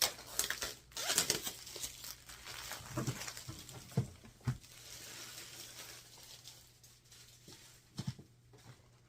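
Packaging being handled and unpacked from a diamond painting kit box: crinkling and rustling, louder in the first few seconds, with a few soft knocks about three, four and eight seconds in.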